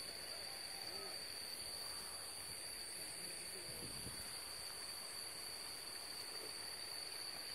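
Steady high chorus of insects such as crickets, a continuous unbroken buzz with no pauses.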